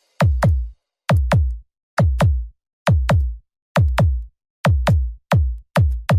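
Bass-boosted electronic battle-mix music for sound-system checks: pairs of deep drum-machine kicks that drop sharply in pitch, repeating a little more than once a second with silence between the pairs.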